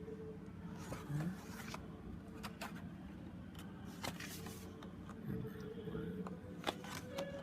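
Sheets of cardstock being handled and shuffled: scattered light paper rustles and taps, over a faint steady tone in the background.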